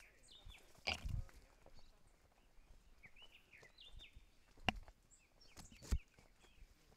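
Footsteps of hikers on a rocky trail: shoes scuffing and knocking on stone, with a few sharper knocks about a second in and again near the end. Several short bird chirps come and go in the background.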